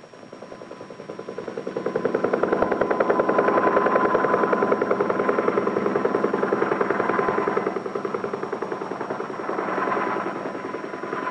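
Helicopter engine and rotor running: a rapid, even chopping beat that builds over the first two seconds as it lifts off and climbs, then eases a little about eight seconds in.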